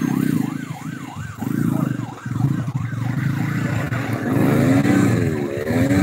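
Road vehicle engines running, with an electronic siren warbling rapidly up and down over them, about three sweeps a second, until a little past halfway. About four seconds in, a lower, slower wavering tone takes over.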